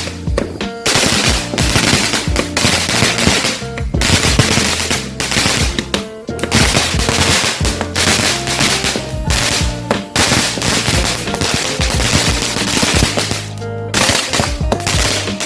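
A string of firecrackers going off in rapid, continuous cracks, broken by a few short pauses, with music faintly underneath.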